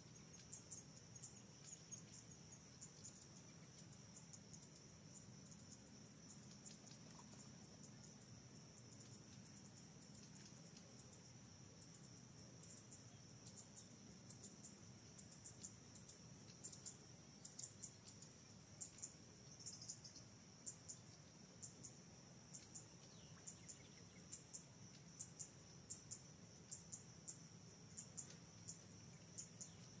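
Faint, high-pitched insect chorus trilling steadily, with short chirps ticking over it in the second half.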